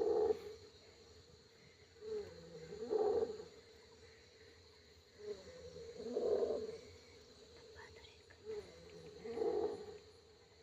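Loud snoring sound repeating about every three seconds, each cycle a short rising breath followed by a louder, drawn-out snore.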